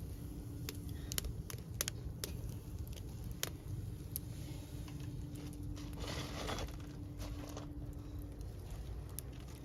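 Wood fire crackling, with scattered sharp pops and clicks as peppers are set to roast over it, and a faint steady hum underneath.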